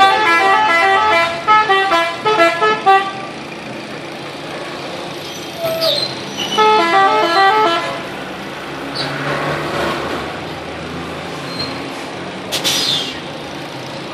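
Telolet bus horn, a multi-tone musical air horn, playing a tune of quick stepped notes: one phrase of about three seconds at the start and a shorter phrase about six and a half seconds in.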